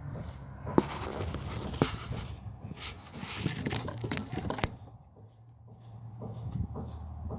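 Rustling and scraping with a couple of sharp clicks, as of parts being handled, which dies down about five seconds in to leave a low steady hum.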